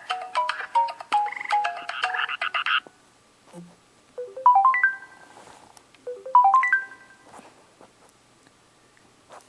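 TracFone cell phone ringtones: a quick electronic melody of beeping notes that stops about three seconds in, then after a pause a short rising run of beeps played twice.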